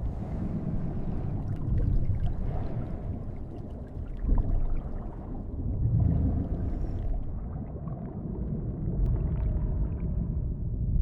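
Underwater ambience: a low rumble that swells and eases every few seconds, with faint bubbling ticks over it.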